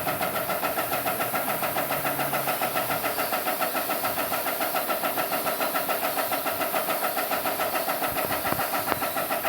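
Airless paint sprayer's piston pump running with a steady rhythmic pulse, about six strokes a second, over a steady high hiss.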